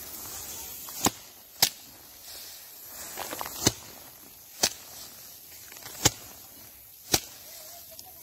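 Rice being threshed by hand: bundles of cut paddy stalks are swung and beaten down hard onto the ground. Six sharp whacks land at uneven intervals, with a rustle of stalks between them.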